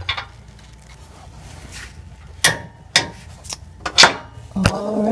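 ICON click-type torque wrench clicking as the exhaust flange nuts reach the set 32 ft-lb: two sharp clicks about a second and a half apart, with lighter ratchet ticks between.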